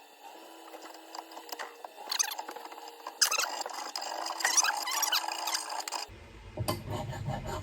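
Irregular scraping with short high squeaks from a hand tool working the wooden top of a freshly wedged axe handle, as it is trimmed and cleaned up. About six seconds in the sound cuts to a fuller, lower background.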